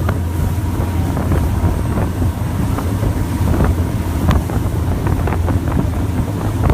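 Engines of a Thames Clipper river boat running under way, a steady low drone, with wind buffeting the microphone and scattered small knocks.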